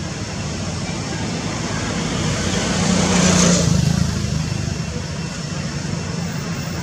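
Steady background rumble as a motor vehicle passes, swelling to its loudest about three seconds in and then fading.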